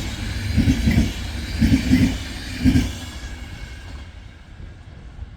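Railway wheels clacking over rail joints as a train passes, in paired knocks about once a second from each bogie's two axles. The knocks stop about three seconds in, and the rolling noise dies away as the train moves off.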